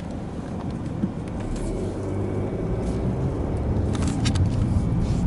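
Car engine and road rumble, steady and low, growing gradually louder, with a few faint clicks about four seconds in.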